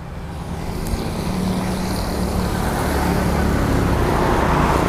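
A motor vehicle's engine running and drawing nearer, a low hum with road noise growing steadily louder.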